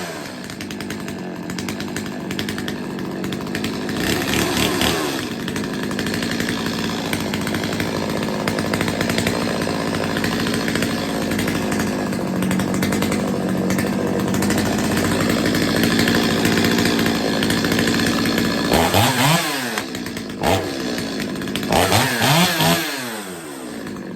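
Stihl 025 two-stroke chainsaw running at high speed on a test run after a carb tune and chain sharpening, spinning the chain to oil the dry bar. The engine drops back and revs up again briefly about four seconds in and a few times near the end.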